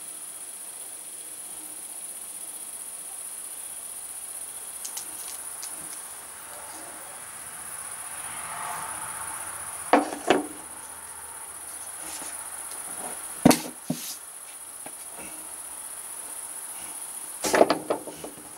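Crickets chirring in one steady, high-pitched trill. A few sharp clicks or knocks break in, about ten seconds in, again a few seconds later and near the end.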